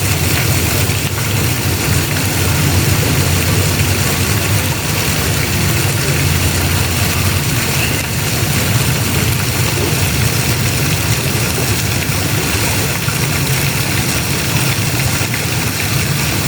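Steady rush of falling water spraying down, with a constant low rumble underneath.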